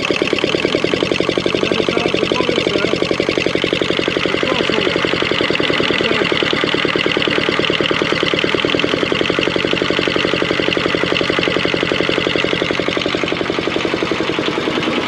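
Two-cylinder Kubota diesel engine running steadily, with a rapid, even firing beat.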